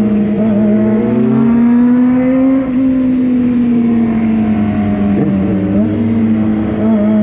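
Motorcycle engine running at a steady road speed. Its pitch rises gently and then slowly eases off, with a brief dip and pickup near the end.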